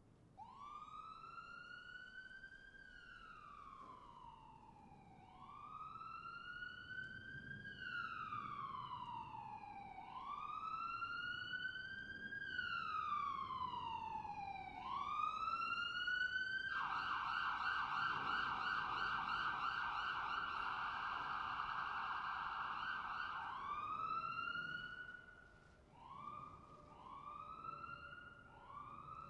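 Police car siren in a slow wail, each cycle rising quickly and falling slowly, growing louder. Then it switches to a rapid yelp for several seconds before returning to the wail, ending with a few short rising whoops.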